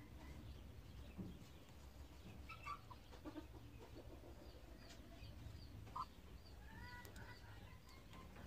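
Faint poultry calls: a few soft clucks and short chirps scattered through, over a low steady hum.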